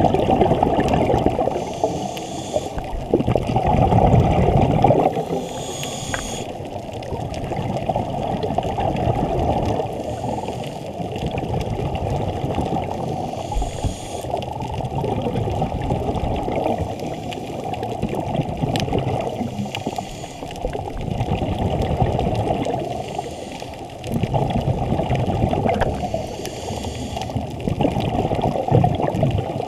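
A scuba diver's regulator breathing, heard muffled underwater: exhaled bubbles gurgling in swells every four to five seconds, with a short faint hiss of inhalation between them.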